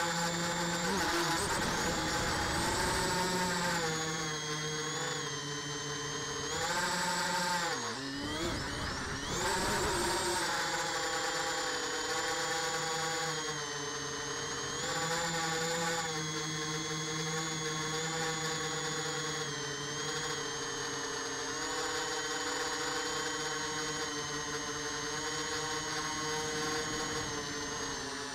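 Small multirotor drone's electric motors and propellers whining, the pitch rising and falling with the throttle. The pitch drops sharply about eight seconds in, turns ragged for a moment, then climbs back to a steadier whine.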